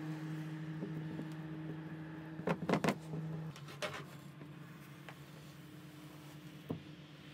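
Harbor Freight plastic welder running with a steady low hum while a plastic rod is melted into a crack in a plastic sled; the hum drops about three and a half seconds in. A few sharp clacks of handling about two and a half to three seconds in, another about four seconds in and one near the end.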